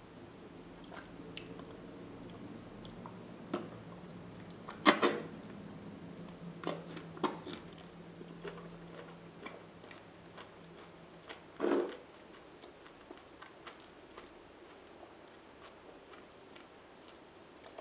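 Close-miked wet, sticky mouth and finger sounds of eating slimy raw aloe vera leaf gel: scattered small clicks and smacks, with two louder wet smacks about five seconds in and near twelve seconds. A faint low steady hum runs underneath until about twelve seconds in.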